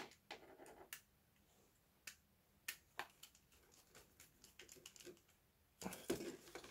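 Faint scattered clicks and small taps from handling a plastic solid-state relay module and fitting a wire to its screw terminal with a screwdriver, with a sharper click at the start and a cluster of clicks near the end.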